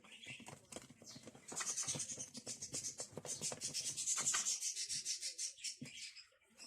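A kitchen utensil scraping in quick, even strokes, about five a second, with softer scrapes before and after; the scraping fades out a little past the halfway point.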